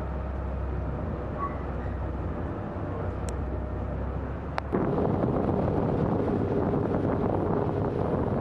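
A boat's motor running with a steady low hum; about five seconds in the sound cuts to a louder, rougher rush of wind over the microphone with the motor still running.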